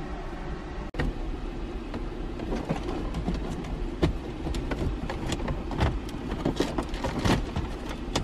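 The factory head unit and plastic dash trim of a Mitsubishi Lancer being worked loose from the dashboard by hand: scattered plastic clicks, snaps and knocks as clips release, over a steady low hum.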